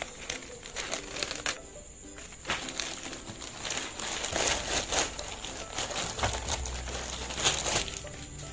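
Packaging crinkling and rustling as a box of brush pens is handled and unwrapped, denser from about two and a half seconds in, over soft background music.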